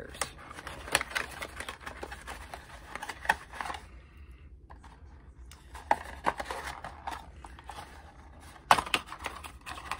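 A small cardboard product box being handled and opened: irregular paperboard rustling, scraping and clicks, with a few sharper snaps, the loudest near the end.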